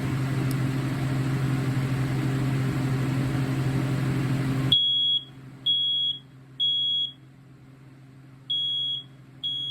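BRK 4120B first-generation smoke alarm sounding in a temporal-three pattern. There are three short, high, single-pitch beeps, a pause, then two more as the next round of three begins; this unit beeps a little faster than the other 4120 models. Before the alarm starts, a steady low hum cuts off suddenly about five seconds in.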